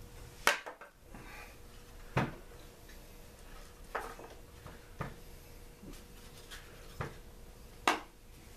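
Small engine parts of a Mantis tiller, its plastic recoil starter housing and engine body, being handled and set down on a workbench: six sharp knocks and clunks, the loudest about half a second in and near the end.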